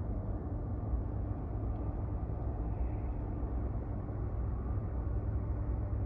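Steady low rumble of an approaching diesel freight train, with no sudden events.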